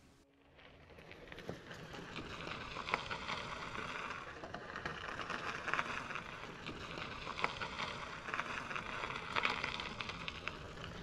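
Tyres of a loaded gravel bike crunching over a gravel road, fading in over the first second or two, with scattered sharp ticks and crackles of stones under the wheels.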